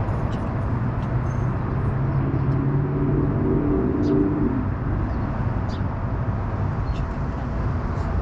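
Car driving: steady engine and road noise, with a brief extra hum from about two and a half to four and a half seconds in.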